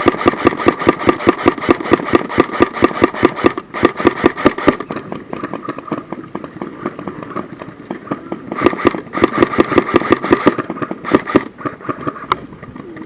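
Airsoft electric gun firing on full auto: long bursts of rapid, even clicks over a steady gearbox whine, a first run of about three and a half seconds, then another of about two seconds and short bursts near the end.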